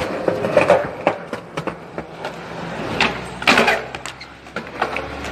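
Skateboard on concrete: wheels rolling and the board knocking and clattering on the ground several times, the loudest knocks about three to three and a half seconds in.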